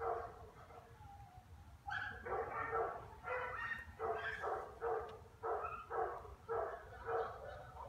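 A dog barking over and over, about two barks a second, after a short break near the start.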